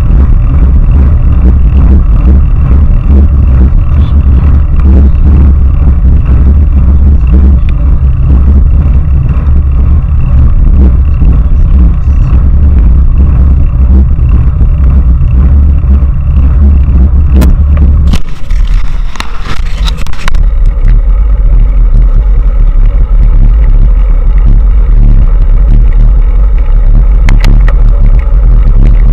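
Heavy wind buffeting on a bike-mounted camera's microphone as a road bicycle rides along at speed, a loud steady rumble. About two-thirds of the way through it gives way to about two seconds of scraping hiss before the rumble returns.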